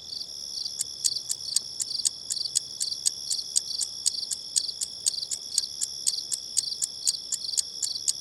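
Insects chirping in a steady chorus: a continuous high trill with regular chirps about four times a second.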